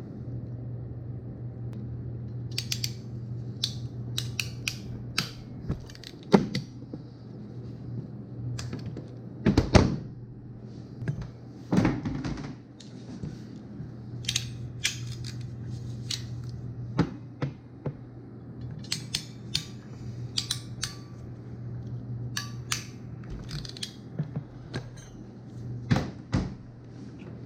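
Irregular sharp clicks, snips and small knocks of hand tools handling and cutting electrical wire, over a steady low hum.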